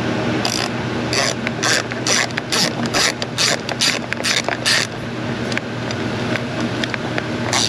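Hand ratchet clicking in quick bursts, about two strokes a second, as the A/C compressor hose bolts are tightened, stopping a little before five seconds in and starting again near the end. A steady hum runs underneath.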